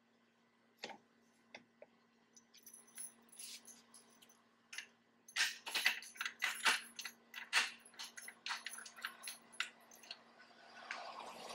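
Irregular metallic clicks and clinks from a hitch-mounted bike platform rack being adjusted by hand, with a dense run of sharp clicks about halfway through and a rustling hiss starting near the end. A faint steady hum sits underneath.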